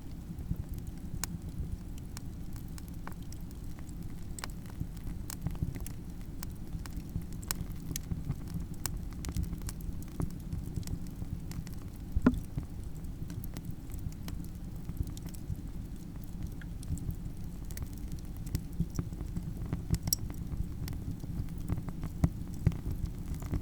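Campfire burning with a steady low rumble of flame and many irregular sharp crackles and pops of burning wood, one louder pop about twelve seconds in.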